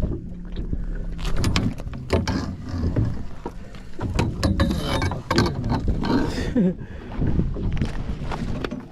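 Close handling noise of a sheepshead being unhooked in a landing net: irregular knocks, clicks and rustles of the net, hook and fish against the boat deck.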